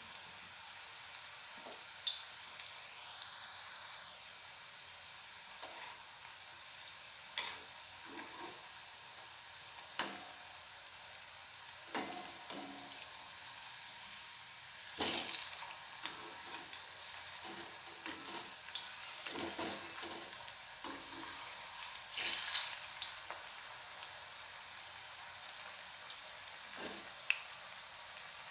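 Medu vadas deep-frying in hot oil in a kadhai over a medium gas flame: a steady sizzle with scattered sharper pops and clicks. About halfway through, a steel slotted spoon turns the vadas in the pan.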